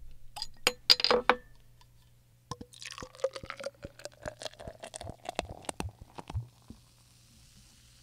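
A few clinks of glass, then a drink poured into a glass for about four seconds. The pouring tone rises slightly as the glass fills, with clicks and clinks throughout.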